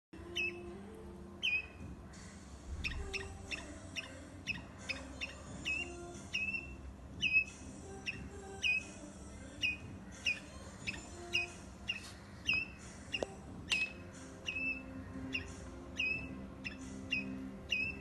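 A squirrel calling over and over: short, sharp, high chirps about once a second, each dropping quickly in pitch, in an uneven but steady series.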